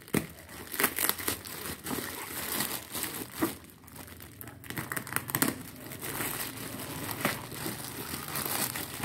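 Thin black plastic bag crinkling and rustling as it is cut open with a craft knife and pulled back by hand, with irregular sharp crackles.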